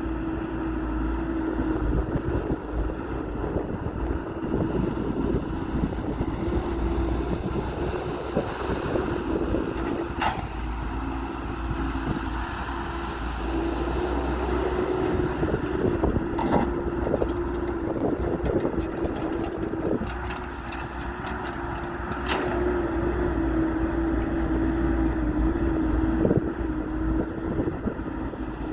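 Diesel engine of heavy construction machinery running steadily, with three short sharp clanks spread through the sound.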